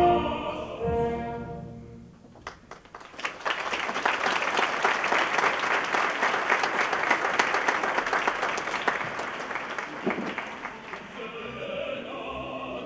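Opera singers and orchestra finish a number on a held chord that dies away; about two seconds in, the audience breaks into applause for some eight seconds, which tails off as the orchestra comes back in quietly near the end.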